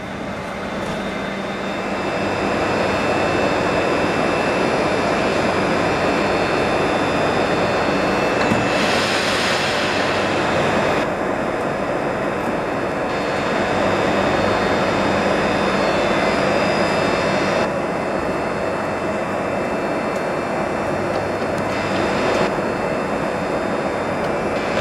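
Steady loud whooshing hum of an SKM electric multiple-unit train standing at an underground platform, with a few thin steady whining tones over it. A louder hiss rises for a couple of seconds about nine seconds in.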